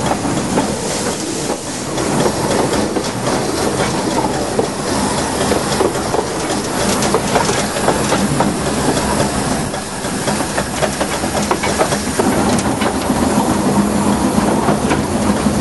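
Two-foot narrow-gauge locomotive running, heard from its cab: a steady rumble and hum, with the wheels clicking and clattering over rail joints and points.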